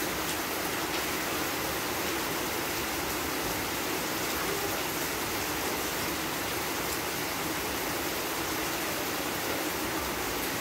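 Heavy rain falling steadily, an even unbroken hiss of downpour.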